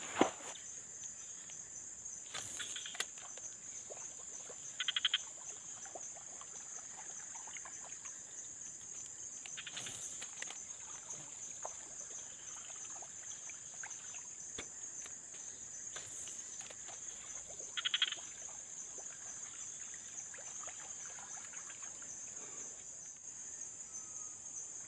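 Insects droning steadily at a high pitch in swamp forest, with two short, rapid trills, one about five seconds in and one near eighteen seconds.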